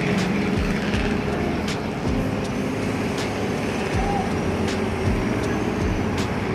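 Construction-site machinery running with a steady engine-like hum, with sharp knocks every second or two.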